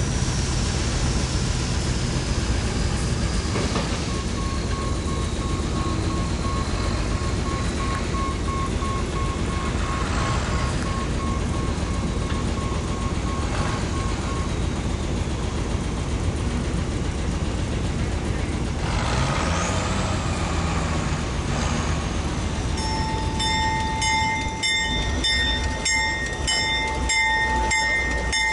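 Diesel-electric locomotive running with a steady low engine rumble, its pitch rising and falling briefly about two-thirds of the way through. A faint pulsed beep sounds through the first half. Near the end the locomotive bell starts ringing, about two strokes a second.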